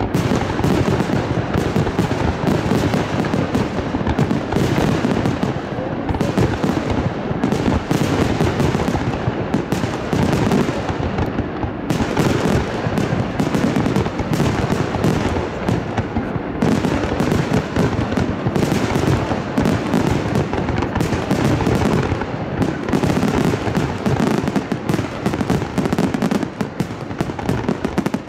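Fireworks display: shells bursting and crackling in a dense, almost unbroken barrage of bangs.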